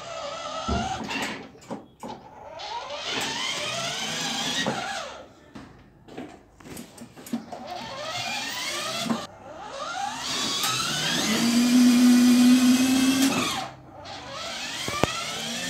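Electric motors of a children's battery-powered ride-on car whining as it drives. Each whine rises in pitch as the car pulls away, cuts off, then starts again. The loudest part is a steady low hum lasting a couple of seconds about three-quarters of the way through.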